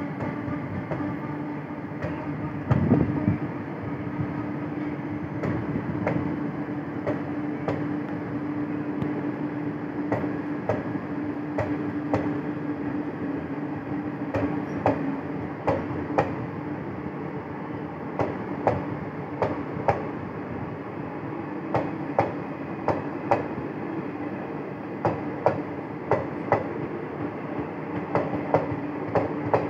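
Indian Railways passenger coaches rolling past a platform: a steady rumble and hum, with the wheels clacking over rail joints in pairs. The clacks come more often in the second half as the train pulls away.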